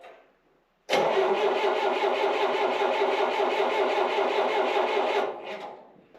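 Starter cranking the 1972 Allis Chalmers M65 grader's gasoline engine for about four seconds, starting abruptly about a second in, without the engine catching, then letting off. This is the grader's hard-starting fault, still there after a fresh condenser and cleaned points.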